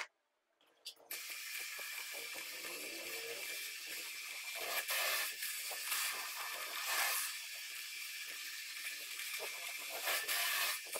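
Bench drill press running and drilling a hole through a steel bar clamped in a machine vise. A steady hissing cutting noise starts about a second in and swells louder several times as the bit bites into the metal.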